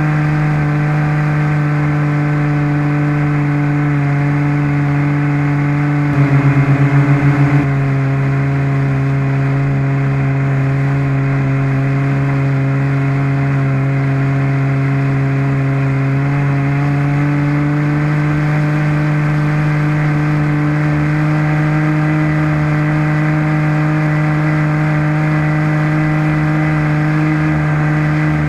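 A radio-controlled model airplane's combustion engine running steadily at high revs, heard close up from a camera mounted on the plane. The engine flutters briefly about six seconds in, then its pitch eases slightly and rises again gradually later on.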